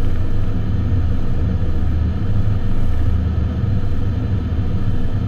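Steady low rumble inside an airliner's cockpit on final approach.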